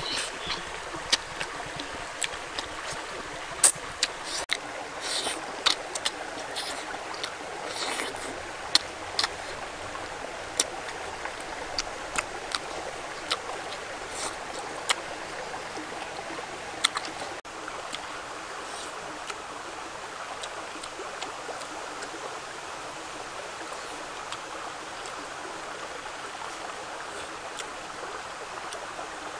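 Stream flowing steadily, with many sharp smacking and chewing clicks of someone eating chicken by hand close to the microphone. About 17 seconds in the clicks stop and only the stream's steady rush remains.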